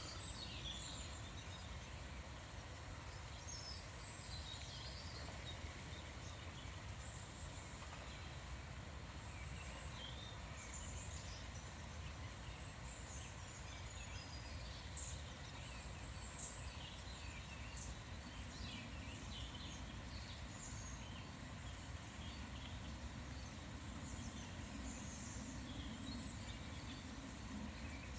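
Small songbirds chirping and calling, many short, scattered notes, faint over a steady low background rumble.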